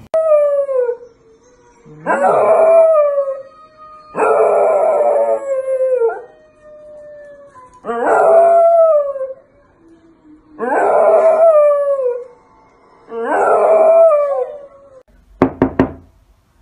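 Young dog howling: six drawn-out howls, each falling in pitch, with short pauses between them. A few sharp clicks near the end.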